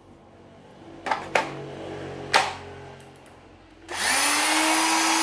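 Makita 14V cordless circular saw with a brushed motor: a few handling clicks, then about four seconds in the trigger is pulled and the motor spins up with a rising whine and runs at full speed with blade noise.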